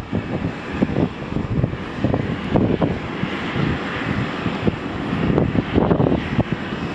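Jet airliner's turbofan engines running as the aircraft taxis, a steady hiss that swells in the middle. Irregular wind buffeting on the microphone is mixed in.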